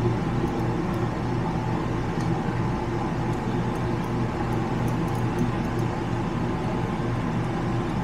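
Steady mechanical hum with a low buzzing tone at an even level.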